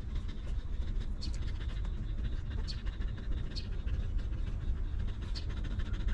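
Mother dog panting, over a steady low rumble.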